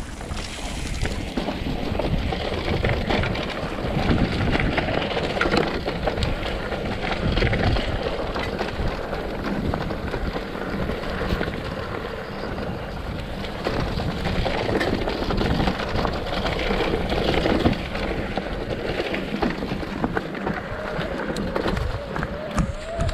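Mountain bike riding downhill on a trail: wind buffeting the microphone over the rumble and rattle of the bike across rough ground. A faint rising whine comes in near the end.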